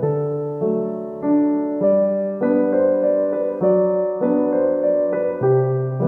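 Background piano music: slow, steady notes and chords, a new one struck about every half second and each fading away.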